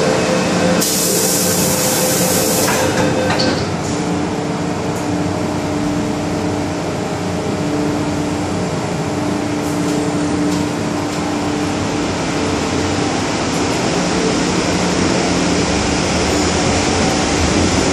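Inside an MTR M-Train car at a station stop: a two-second hiss, then a knock as the doors shut about three and a half seconds in, followed by the car's steady hum with a few steady tones while it stands. Near the end a deeper rumble builds as the train starts to pull away.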